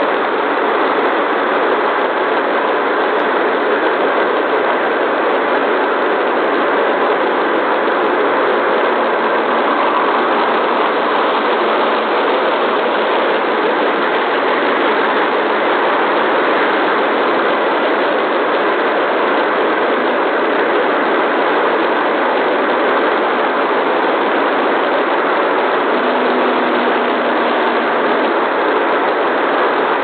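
Steady, even noise that stays unchanged throughout, with no distinct sounds standing out in it.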